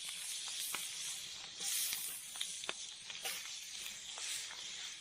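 Marinated pork ribs sizzling in hot oil in a frying pan: a steady hiss with scattered sharp pops and crackles of spitting fat.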